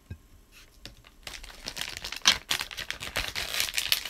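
Plastic packet of edible art transfer sheets crinkling as it is handled and opened: a rapid run of rustles and crackles that starts about a second in, with a louder crackle a little past two seconds in.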